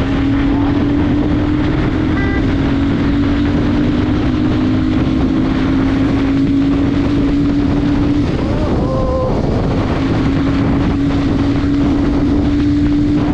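Royal Enfield Super Meteor 650's parallel-twin engine running hard at high speed, its steady note slowly rising and briefly fading about eight seconds in. Heavy wind noise on the microphone lies over it.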